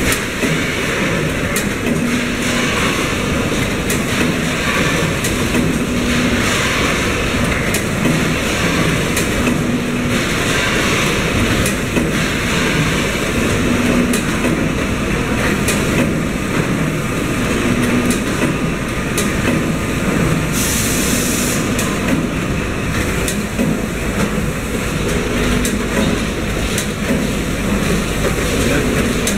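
GPM BVM-1300 automatic charcoal-bag baling machine running: a steady mechanical clatter with many sharp clicks and short hums recurring every few seconds. A high hiss lasts about two seconds around twenty seconds in.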